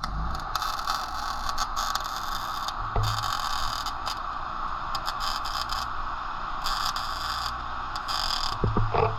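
Welding arc crackling and hissing, the high crackle cutting out briefly a couple of times as the weld is stopped and restarted.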